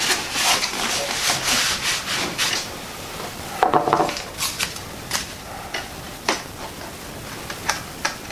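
Model airplane parts being handled and fitted together by hand: a couple of seconds of rubbing and scraping, a short squeak about three and a half seconds in, then scattered light clicks and taps.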